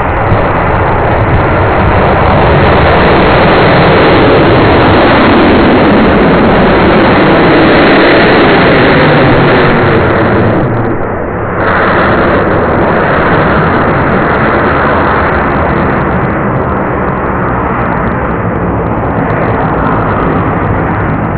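Solid-fuel motor of a student-built high-power rocket burning at launch: a loud, steady rushing noise. It dips briefly about eleven seconds in, then goes on slightly quieter as the rocket climbs away.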